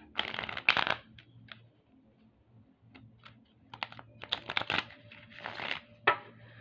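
A deck of chakra cards shuffled by hand: quick clusters of cards slapping and rustling against each other, at the start, around four to five seconds in and near the end, with quieter gaps between.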